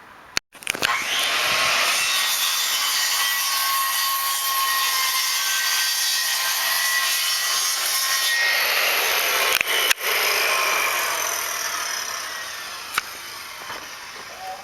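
Electric power saw cutting wood, running steadily with a motor whine. It starts about half a second in, breaks off briefly near ten seconds, then fades away toward the end.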